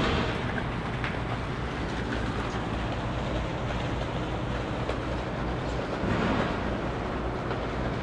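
Steady mechanical hum and rushing noise of rooftop refrigeration condensing units running, with a low drone underneath.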